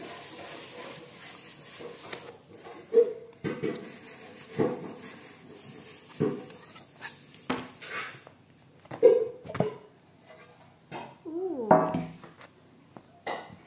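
A knife scraping around the inside of a metal loaf tin to loosen a baked loaf, with irregular knocks of the blade against the tin. Near the end the loaf is turned out onto a plastic cutting board.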